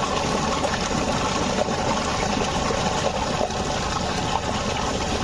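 Steady rushing water, a loud, even wash of noise.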